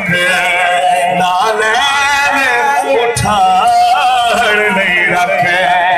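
A man's voice singing Punjabi rubaiyat into a microphone in long, drawn-out melodic phrases whose pitch bends and glides.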